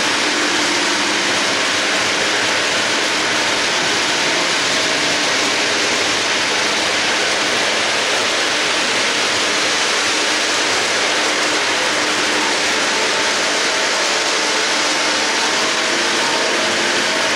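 Lionel O-gauge double-stack train running on tubular three-rail track: the steady rolling hiss of metal wheels on the rails, with a faint low hum underneath.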